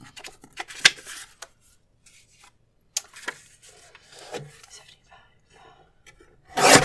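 Paper being handled and slid into place on a Swingline paper cutter, with a few light taps and rustles. Near the end comes one loud, sharp chop as the cutter's blade arm comes down through the sheet.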